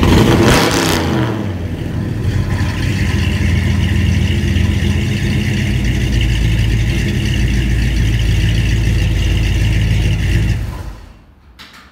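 Chevy 454 big-block V8 running through Full Boar FB2540 chambered mufflers, a Flowmaster 40 copy. A rev falls back at the start, the engine holds a steady idle, and it is shut off about eleven seconds in.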